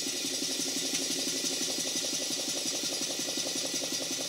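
Twin-cylinder model steam engine running on compressed air: a rapid, even beat of about ten exhaust puffs a second over a steady hiss of air.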